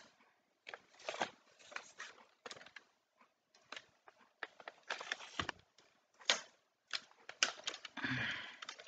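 Irregular clicks, taps and rattles of a camera tripod being handled as its legs are spread and adjusted, with a longer rustle near the end.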